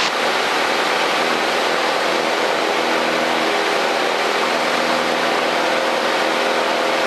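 Cessna 152's four-cylinder Lycoming engine and propeller at full power on the takeoff roll, heard from inside the cockpit: a steady drone with engine hum under a wash of wind and propeller noise.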